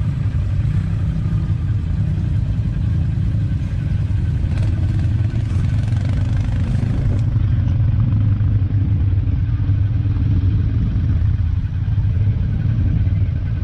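Off-road vehicle engine idling steadily, a low even hum with no revving.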